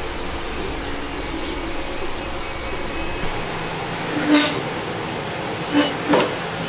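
Steady background hum with a low rumble that drops away about halfway through, then three short knocks near the end.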